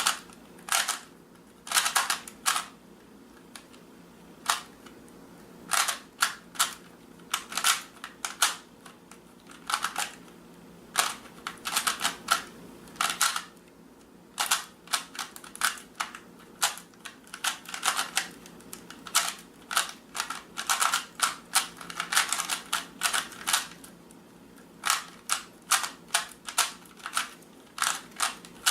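Rubik's Cube being turned by hand: sharp plastic clicks, some single and some in quick runs of several a second, with short pauses between runs.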